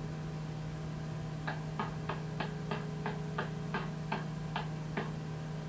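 A run of light ticks, about three a second for a few seconds, over a steady low hum.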